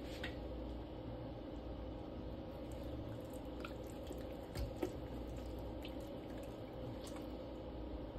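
Bare hands rubbing a wet adobo marinade into the skin of a raw turkey: a few soft, wet squishes and clicks, the clearest a little under five seconds in, over a steady low hum.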